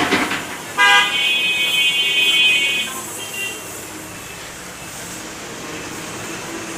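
A vehicle horn sounds in one steady blast of about two seconds, beginning about a second in, then gives a short toot. Just before it comes a brief clatter of garbage dropping from a backhoe bucket into a dump truck, and street traffic and a low engine hum run underneath.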